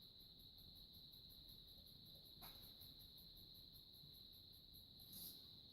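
Near silence: room tone with a faint, steady high-pitched whine and one faint click about halfway through.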